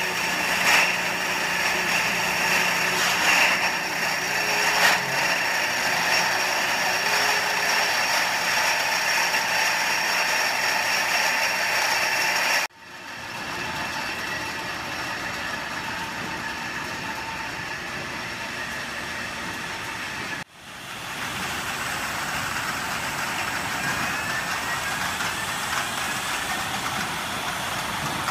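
Bottling-line machinery and conveyors running: a steady mechanical hum and hiss with several high whining tones, and a few sharp clicks in the first five seconds. The sound cuts off abruptly twice and starts again each time.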